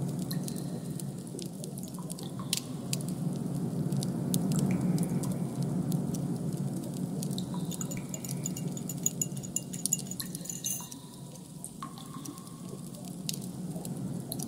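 Designed ambient soundscape: a low, steady noise bed with scattered small clicks and a few brief, faint high tones over it.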